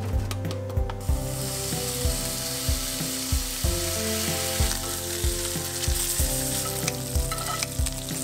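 Bacon strips frying in a cast-iron skillet, a steady sizzle starting about a second in, over background music with a regular beat.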